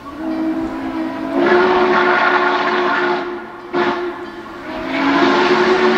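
Train whistle blowing a chord of several notes at once: one long blast, a short break a little after three seconds in, then another long blast.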